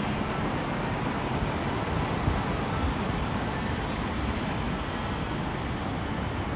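Steady city street traffic noise, with one brief sharper sound a little over two seconds in.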